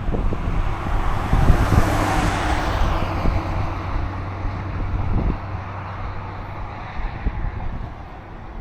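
A car passing by on the road: tyre and engine noise swells over the first two seconds, then falls in pitch and fades away over the next several seconds, over a steady low hum.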